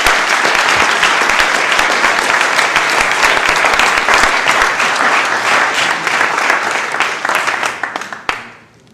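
Audience applauding: dense, loud clapping that dies away near the end.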